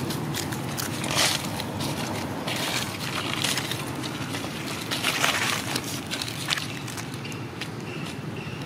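Dry leaves crunching and rustling underfoot in several short bursts, over a steady low rumble.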